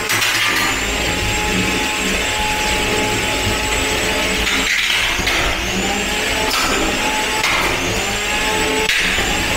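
Antweight combat robots fighting: the drum spinner's small brushless weapon motor whines as it spins up, again and again, over the buzz of the drive motors. Several sharp clanks come as the drum hits the wedge flipper.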